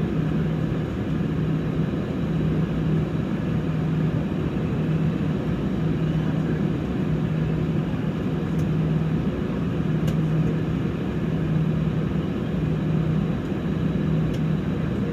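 Airbus A320 cabin noise while the airliner stands on the ground with its engines idling: an even rush of air under a low hum that throbs at a slow regular pace.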